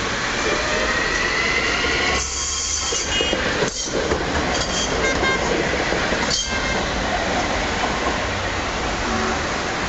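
Electric rail car of Changchun's light rail or tram system running along the track, a steady rolling rumble with two sharp clacks from the wheels over rail joints, about two and a half seconds apart, and brief wheel squeal.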